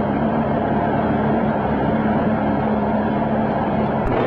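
Boat motor running steadily with an even hum. A sharp click comes near the end, and the engine note sits lower after it.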